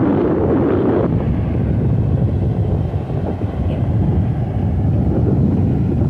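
Strong onshore wind buffeting the microphone as a loud, steady low rumble, over the wash of rough surf; it is heavier for about the first second.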